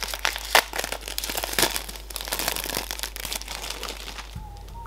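Thin plastic packaging crinkling and crackling as hands work it off a small product box, a dense run of small crackles that thins out near the end.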